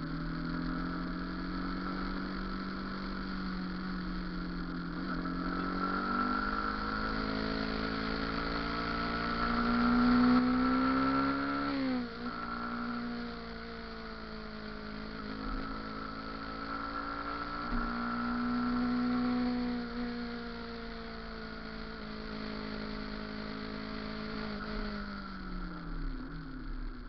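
Motorcycle engine running under way. Its pitch climbs as it accelerates, dips sharply and briefly about halfway through as with a gear change, rises again, then falls away near the end as it slows.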